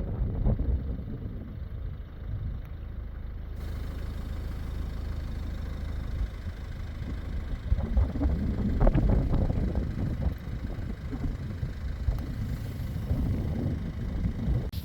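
Wind buffeting the microphone, a gusty low rumble that swells and eases, strongest a little past the middle.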